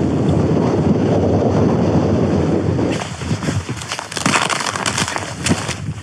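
Wind buffeting the microphone, easing after about three seconds to leave crunching footsteps on thin snow.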